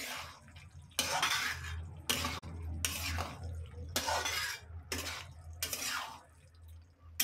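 Spatula stirring and scraping thick, simmering keema and liver curry in a pan, in repeated strokes about a second apart.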